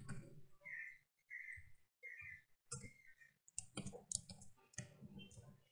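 Faint computer keyboard typing: scattered key clicks, coming quicker from about three and a half seconds in.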